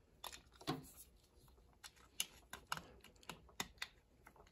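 Irregular light clicks and taps of plastic spark plug wire boots and wire separators being handled and pushed onto the towers of a distributor cap.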